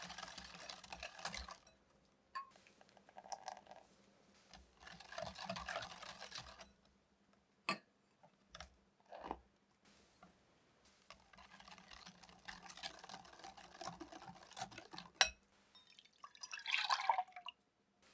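Wire balloon whisk beating egg yolks and sugar in a glass bowl, in several bursts of rapid, wet, scratchy whisking with short pauses between. There are a few sharp taps in the gaps, and flour is whisked into the mixture later on.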